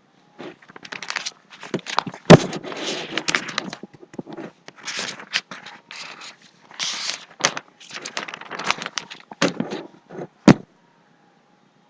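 Rustling and clicking handling noises with a few sharp knocks, the loudest about two seconds in.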